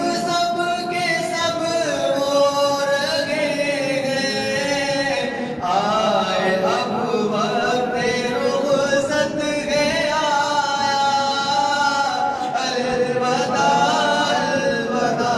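Male voice singing a devotional chant without instruments, in long, slowly bending held notes.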